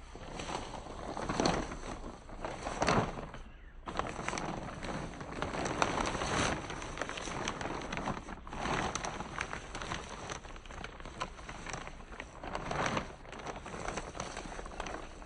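Rustling and scraping of hands-on planting work in a garden bed, coming in several uneven surges.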